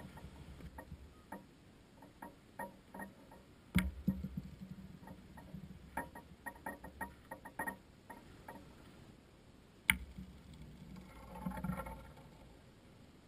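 Steel pétanque boules being shot onto a gravel terrain: two sharp impacts about six seconds apart. Between them comes a run of small clicks and crunches from the boules and grit on the gravel.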